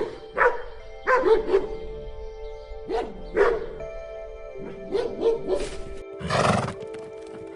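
Repeated short animal calls, each falling in pitch and coming in quick groups, over background music with long held notes.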